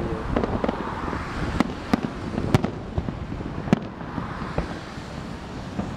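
Aerial firework shells bursting: about five sharp bangs at irregular intervals over a continuous rumble.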